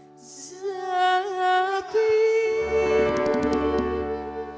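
A woman singing into a handheld microphone: a short phrase, then a long held note from about two seconds in, with backing music joining underneath.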